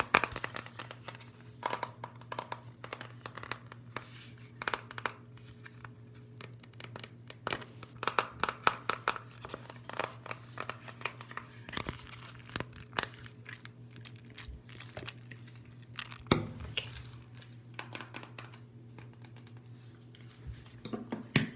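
Fingers and nails tapping and scratching on the plastic case of a Suave deodorant stick: irregular sharp taps, some in quick runs, with short stretches of scratchy rubbing.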